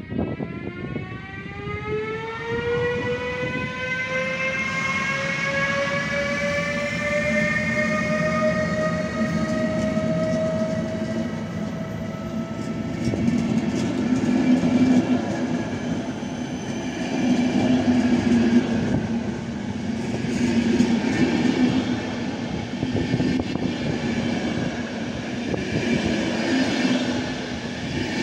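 Siemens Vectron electric locomotive pulling away with a pitched electric whine that rises steadily for about ten seconds as it accelerates. Then a rumble of passenger coaches rolling past, with repeated wheel clacks over the rail joints.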